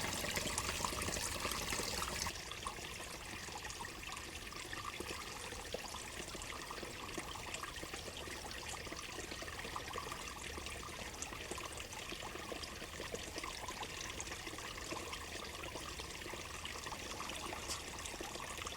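Steady trickling of running water, with a slight drop in the hiss about two seconds in.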